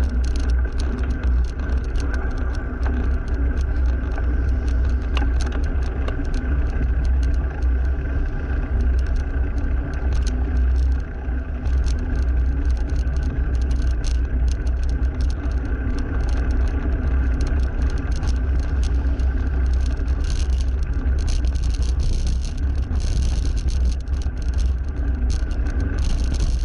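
Wind rushing over the microphone of a camera on a moving bicycle, with road traffic noise from a busy highway.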